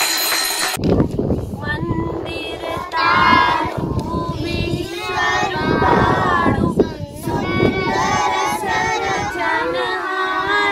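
Clanging of steel plates beaten with spoons, with clapping, cuts off suddenly under a second in, and a child's singing voice follows for the rest of the time.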